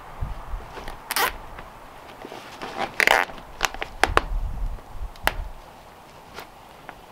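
Plastic zip ties being pulled tight through the tarp's grommets on the shelter frame: a handful of short zipping rasps and clicks, the loudest about three seconds in.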